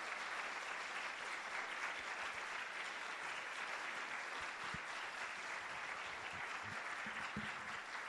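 An auditorium audience applauding steadily, a dense patter of many hands clapping in thanks to a speaker.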